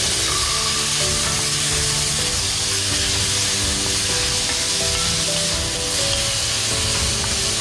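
Chopped tomato, onion, garlic and ginger sizzling as they fry in hot oil in a pot, stirred with a wooden spatula, with background music playing.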